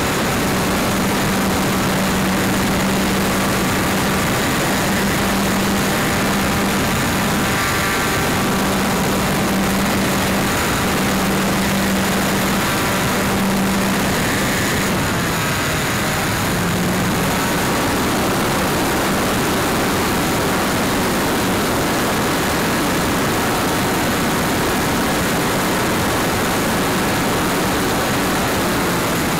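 Hangar 9 Alpha 60 RC trainer airplane's engine and propeller running steadily in flight, a constant tone under heavy wind noise on the plane-mounted camera.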